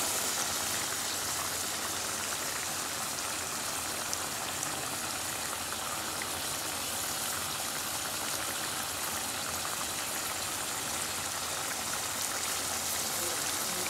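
Pieces of tough desi chicken bubbling and sizzling in oily gravy in a nonstick wok, a steady hiss with a few faint crackles, as the chicken is braised (kosha) in its own juices.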